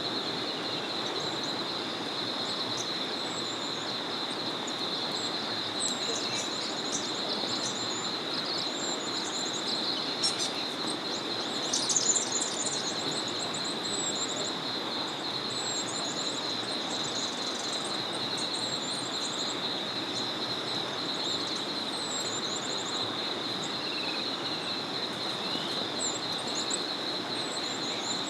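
Small forest river flowing steadily under a constant, high-pitched pulsing chorus, with scattered short bird chirps throughout. A louder burst of bird calls comes about twelve seconds in.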